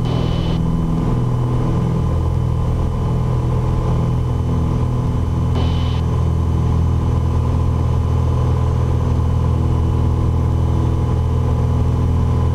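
Piper Dakota's six-cylinder Lycoming engine and propeller at takeoff power, a loud steady drone heard in the cockpit through the takeoff roll and climb-out. Two brief hisses cut in, at the very start and about six seconds in.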